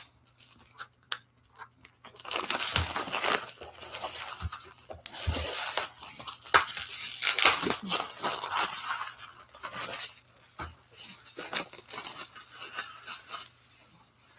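Clear plastic shrink-wrap being torn and crumpled off a large hardcover book: irregular bursts of crinkling and tearing, starting about two seconds in, with a few soft knocks.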